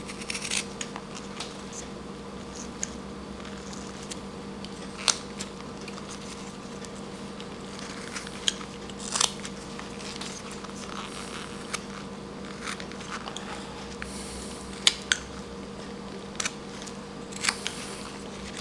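Whittling knife paring slivers off a small wood carving: short, crisp cuts at irregular intervals, a few seconds apart, over a steady faint hum.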